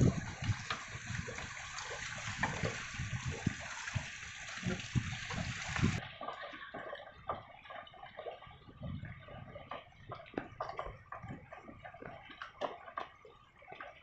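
Water lapping and splashing against the stilts and net below a wooden fishing platform, with many small scattered drips and splashes. A steady hiss runs over the first six seconds.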